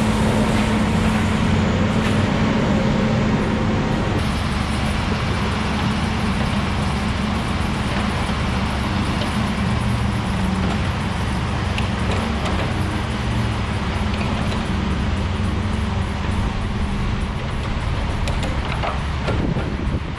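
Diesel logging machinery running steadily, first a grapple skidder driving with a strong engine drone. About four seconds in the sound changes to a knuckleboom log loader working while it loads logs onto a log truck.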